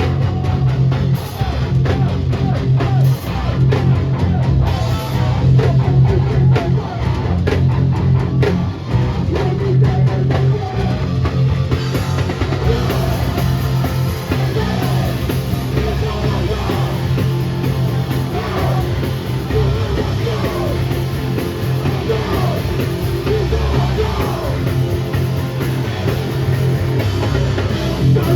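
Hardcore/metalcore band playing live at full volume: distorted guitars and heavy bass over a pounding drum kit.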